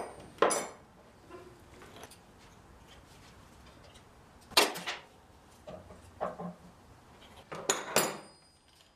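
Hand tools clinking against the metal parts of a motorcycle's rear drum brake and axle: scattered sharp metallic clinks, some with a brief ring. The loudest come about four and a half seconds in and again near the end.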